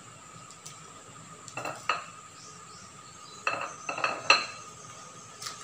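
Aluminium foil crinkling and crackling as hands unwrap it, in a short burst about a second and a half in and a longer, louder run between about three and a half and four and a half seconds in.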